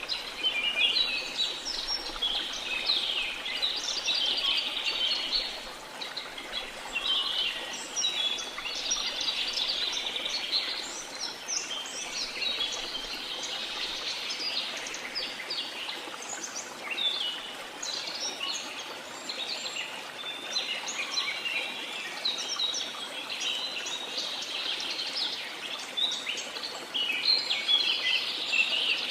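A dense chorus of many birds chirping and trilling at once, over a steady background hiss.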